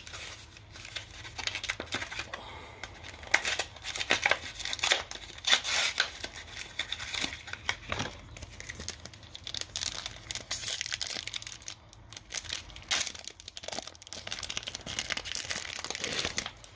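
A foil Yu-Gi-Oh booster pack being torn open and crinkled by hand: irregular crackling and ripping of the wrapper.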